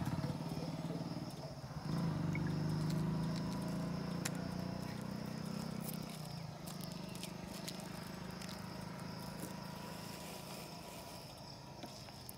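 An engine running low and steady close by, fading away after about six seconds, over a steady high-pitched insect trill, like crickets, that runs throughout.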